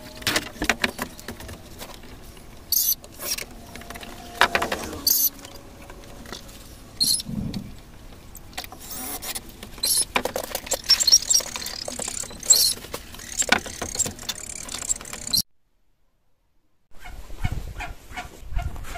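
Scattered sharp clicks, knocks and rattles of hand work fitting corrugated electrical conduit along a wooden shed wall. The sound cuts out briefly near the end.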